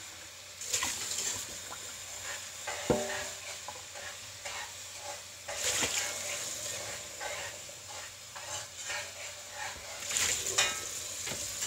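Kitchen faucet running into a stainless steel sink, the stream splashing over a red plastic cup being rinsed under it, with a few light knocks.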